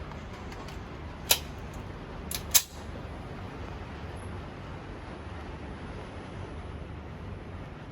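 A steady low hum with three sharp knocks: one about a second in, then two close together about a second later.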